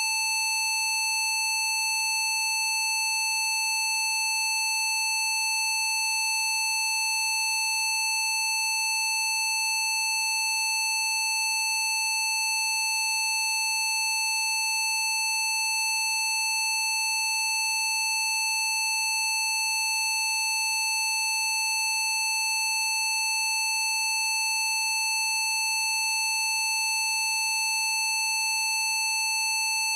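A steady, buzzy electronic test tone from the PC Zapper frequency set, a square wave held at one pitch without any change.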